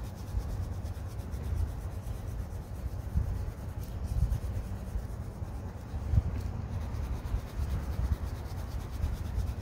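Fine-tip ink pen scribbling small continuous loops on textured watercolour paper: a steady, soft rubbing scratch.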